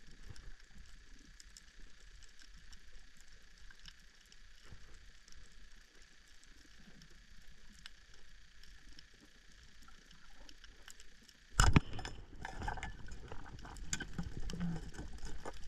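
Underwater coral-reef crackle: scattered faint clicks over a low hiss. Near the end there is a single sudden loud knock, followed by louder rough noise with a low rumble.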